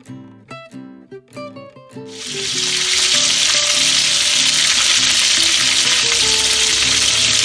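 Raw spring rolls (beef lumpiang Shanghai) sizzling in hot oil in a wok as they are laid in. The sizzle comes in about two seconds in and quickly swells to a loud, steady frying hiss. Before that there is background music with separate notes, which carries on faintly under the frying.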